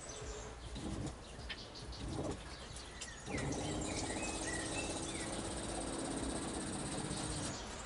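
Camper's water pump running with water flowing from the tap: a steady hum over a rushing hiss that starts about three seconds in and stops just before the end. Birds chirp briefly outside.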